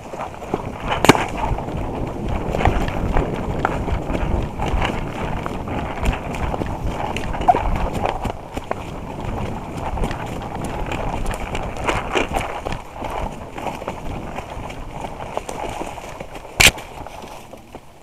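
Running footsteps crunching and rustling through dry leaf litter on a forest floor, with the jostling rattle of a player's gear, continuous and irregular. A sharp knock stands out about a second in and another near the end.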